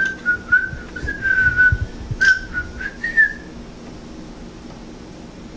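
A person whistling a short wavering tune that stops about three seconds in, with a few sharp clicks of handling mixed in.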